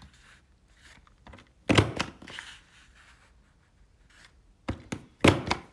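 Plastic hole punch on a paper-craft punch board clacking as it is pressed down through card stock, about two seconds in and twice more near the end, with light paper handling between.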